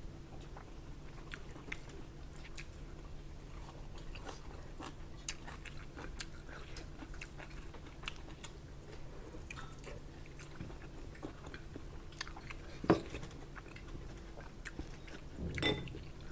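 A person chewing food with her mouth close to the microphone, with soft wet mouth sounds and many small scattered clicks and crunches, over a faint steady low hum. There is one sharper click about 13 seconds in.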